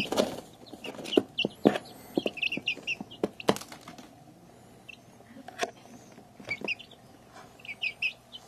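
Young chicks peeping in short high chirps, in quick runs of several notes about a second in, around two and a half seconds, past six seconds and near the end. Scattered sharp taps, louder than the chirps, come between the runs.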